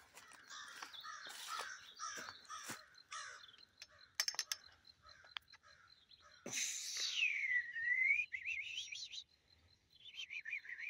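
Crows calling repeatedly from the treetops, a noisy run of caws, which the hiker takes for birds unhappy with people coming through. The loudest call is a long swooping one that dips and climbs again, about six and a half seconds in.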